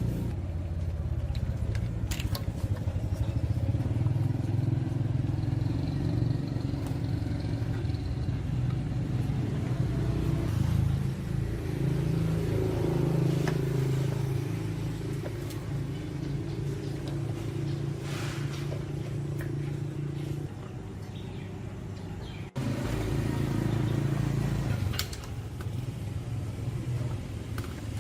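A machine running with a steady low hum whose pitch shifts slightly now and then; the sound breaks off sharply about 22 seconds in and carries straight on.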